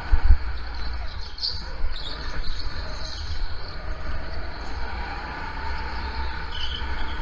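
Onboard sound of a go-kart running on a wet indoor track: the kart's engine and tyres over a heavy low rumble of vibration on the camera, with a sharp knock just after the start and a high steady whine near the end.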